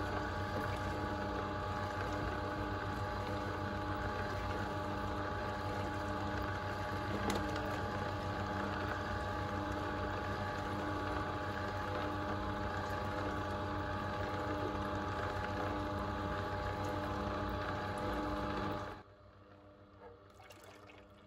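Kuvings C7000 slow juicer running, a steady motor hum with juice churning in the chamber as it presses the produce. The sound cuts off sharply near the end, leaving only faint small sounds.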